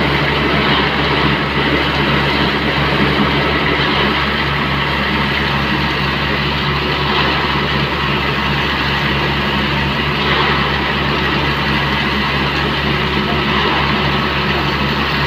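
Concrete mixer truck's engine running steadily with its drum turning, and a steady rush of water pouring into the drum's hopper.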